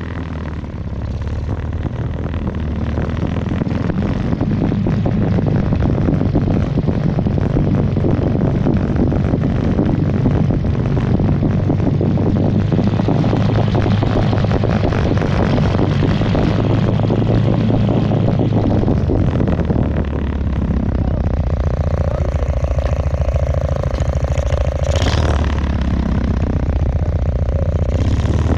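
Single-axle two-wheel tractor's engine running steadily as the machine drives across the field. The sound builds over the first few seconds, dips briefly about twenty seconds in, then settles into a more even note.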